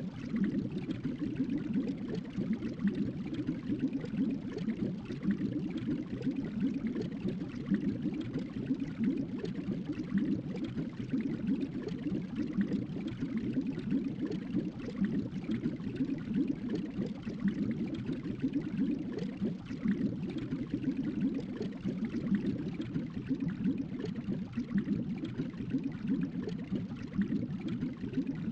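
Tropical island ambience: a continuous, even rush of moving water with no breaks or distinct events.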